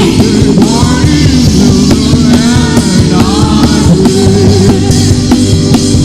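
Loud worship band music with drums, played between the singer's sung prayer lines.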